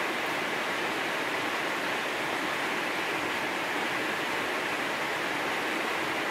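Heavy rain falling on a spandek steel roof, heard from beneath through a foil-faced sound-damping lining, as a steady, dense hiss.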